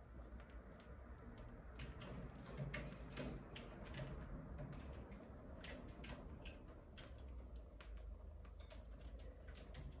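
Cockatiel pecking at and husking seeds from a millet spray: faint, irregular small clicks about one or two a second.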